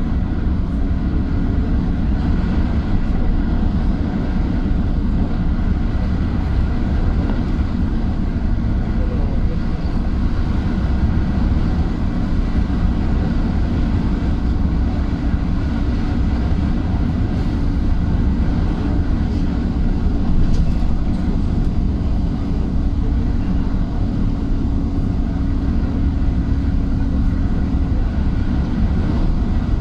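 Engine drone and road noise inside a vehicle's cab while it drives along steadily, with a low hum that stops near the end.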